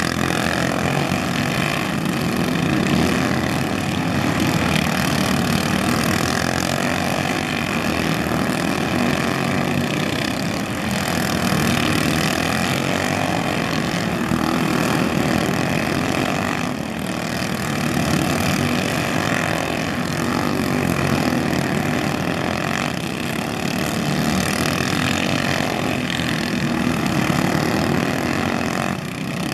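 Engines of several small racing karts running together at speed, a continuous buzzing drone whose level rises and falls gently every few seconds.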